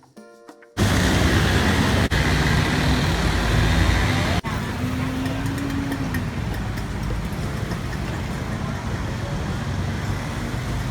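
Steady city traffic noise: vehicles running past with a low rumble, and a brief low tone about five seconds in.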